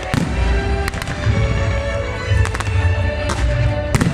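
Fireworks display: deep booms and several sharp cracks of bursting shells, the strongest just before the end, over music playing throughout.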